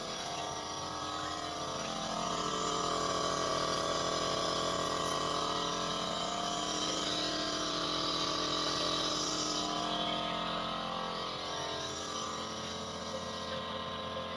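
Home compressor nebulizer (inhaler) running during an inhalation treatment: a steady mechanical buzzing hum.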